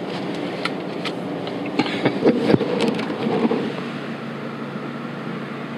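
Vehicle engine idling steadily, heard inside the cab. Clicks and knocks from camera gear being handled and moved come on top of it, loudest about two seconds in.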